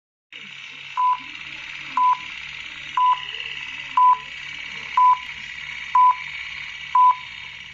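Film countdown leader sound effect: a short mid-pitched beep once a second, seven times, over a steady hiss with a low fast flutter underneath.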